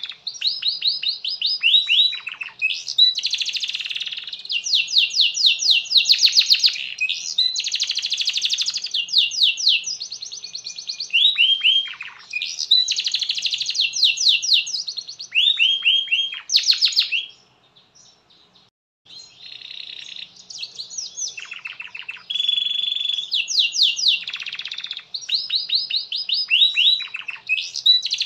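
Domestic canary singing a long, vigorous song of fast trills and rolls of rapidly repeated notes, some phrases sweeping down in pitch. The song breaks off once for about a second and a half about two-thirds of the way through.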